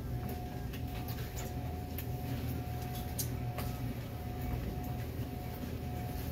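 Steady low mechanical hum with a faint, steady high whine above it, and scattered light clicks and knocks.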